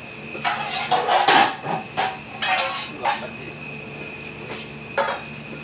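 A metal utensil scraping and clanking against a pan on the stove while fried rice is stir-fried. It comes in bursts: a long run of clatter about half a second in, then shorter ones near two and a half, three and five seconds, over a steady background hum.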